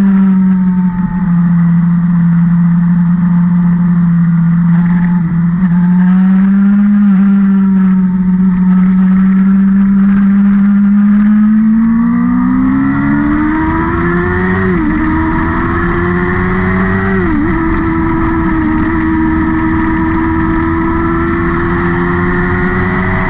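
Vehicle engine running under load at a steady pitch, then revving up from about halfway, with two quick drops in pitch at gear changes a couple of seconds apart, before holding a higher note near the end.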